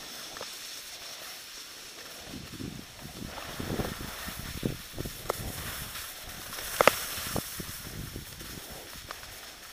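Skis sliding and scraping over packed snow with a steady hiss of wind on the microphone, broken by a few short knocks, the loudest a sharp double knock about seven seconds in.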